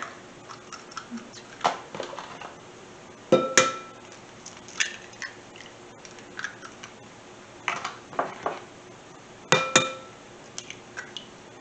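Eggs being cracked against the rim of a ceramic mixing bowl: two sharp taps, about three and a half and nine and a half seconds in, each leaving a short ring from the bowl, with smaller clicks of shell being pulled apart in between.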